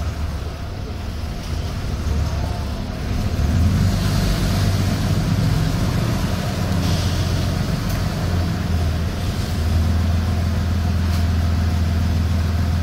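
Heavy diesel engine running steadily with a deep hum, growing louder about three and a half seconds in and then holding.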